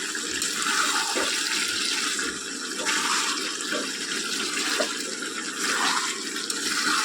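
Chicken and masala sizzling in hot oil in a pan as it is fried down (bhuna): a steady hiss that swells a little now and then.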